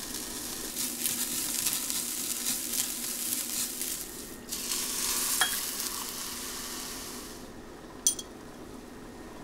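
Soaked rice sizzling and crackling as it is stirred and toasted in a hot pan. About four and a half seconds in, water is poured onto it and the sound turns to a smoother hiss that dies away over a few seconds. A light click near the end.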